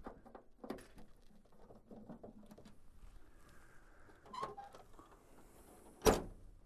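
Torx screwdriver turning a screw out of a printer's plastic end cover: faint scratchy clicks and scrapes. A single sharp knock about six seconds in.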